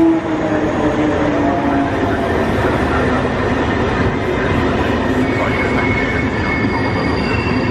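An electric-hauled passenger train pulls into the platform: the MÁV-Start Class 480 locomotive passes, then its InterCity coaches roll by with steady wheel-on-rail noise as the train slows. A thin high squeal sets in about five seconds in as it brakes.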